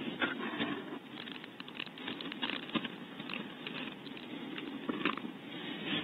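Irregular scratching, rustling and small clicks of a hand working inside a barn owl nest box right beside the nest camera's microphone, clearing out the cavity.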